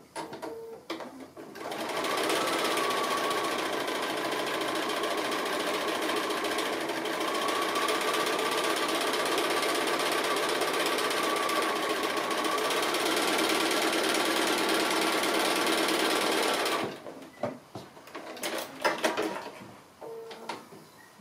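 Bernina sewing machine with its BSR stitch-regulator foot running steadily for about fifteen seconds, free-motion stitching through fabric backed with a cotton batting stabilizer. It starts about two seconds in and stops near the end, followed by a few light clicks.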